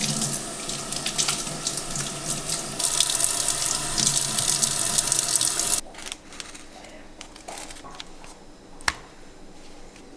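Water running from a tap, louder after about three seconds, then stopping abruptly; a single sharp click follows a few seconds later.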